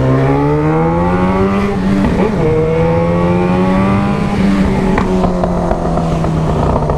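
Yamaha XJ6 inline-four motorcycle engine with a sport exhaust, accelerating hard. The pitch rises, shifts up about two seconds in, climbs again, then holds and eases off slightly, with a sharp crack about five seconds in.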